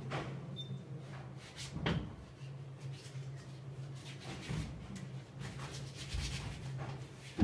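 Paint being worked onto a canvas on an easel: a few short rubbing, scraping strokes, the loudest about two seconds in, over a steady low hum.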